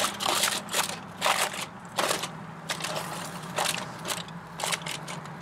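Aluminium foil crinkling and crackling in irregular bursts as a foil cover is pressed down and crimped around a foil tray by hand, over a faint low steady hum.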